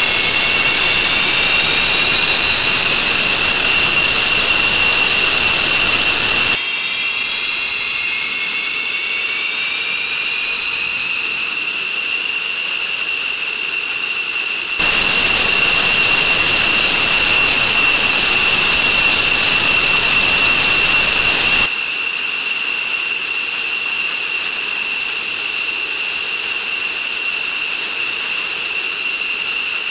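F-15 Eagle's jet engines running on the ground: a steady high-pitched whine over a loud rushing hiss. The whine rises slightly in pitch near the start and again about a third of the way in. The overall level drops sharply about six seconds in, jumps back up about halfway, and drops again about two-thirds through.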